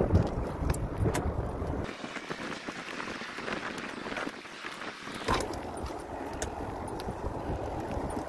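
Wind buffeting the microphone in gusts over a steady outdoor hiss, the rumble dropping away for about three seconds in the middle before returning.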